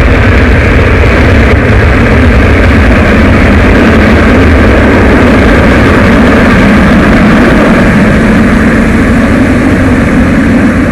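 Jet airliner engines running with a loud, steady roar: a deep rumble under a broad hiss, unchanging throughout.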